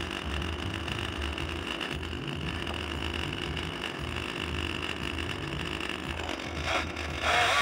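A small engine idling steadily. A much louder sound cuts in about seven seconds in.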